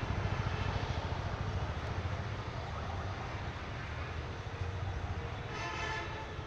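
Street traffic: a steady low rumble of passing vehicles, with a short pitched note like a horn near the end.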